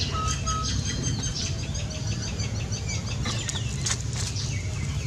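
A small bird singing a quick run of repeated high chirps, about five a second, over a low steady rumble.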